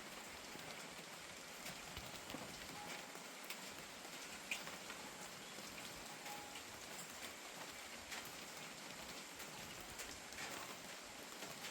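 Steady rain falling, an even hiss with scattered sharper taps of single drops striking nearby.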